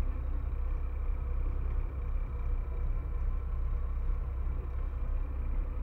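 Steady low engine rumble with a faint constant hum over it, running evenly without change.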